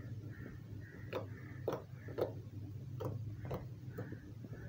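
Blue clear slime mixed with clay being pressed and kneaded by hand, giving a run of sharp clicks and pops about twice a second.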